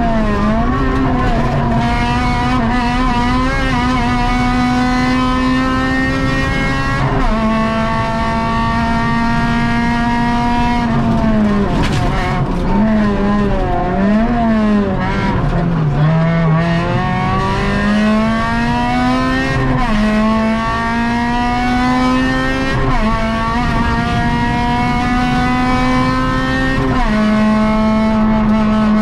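Honda Civic VTi rally car's four-cylinder VTEC engine, heard from inside the cabin, running hard high in the revs. Quick gear changes drop and restore the note about a quarter of the way in and several times in the last third. Around the middle the note dips and wavers as the car slows and the driver changes down, then climbs steadily back up.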